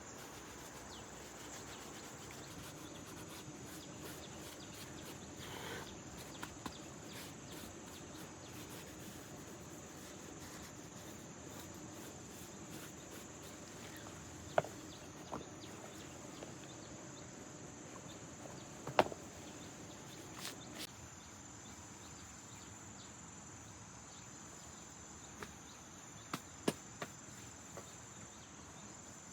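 Steady high-pitched insect chirring, with a few sharp knocks scattered through, the loudest about halfway through.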